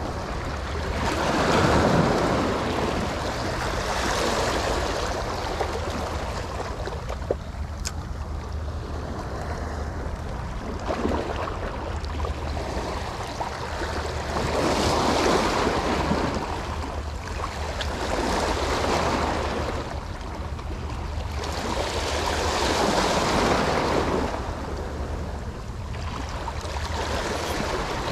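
Small sea waves washing against the rocks of a breakwater, swelling and fading every few seconds. Wind rumbles on the microphone throughout.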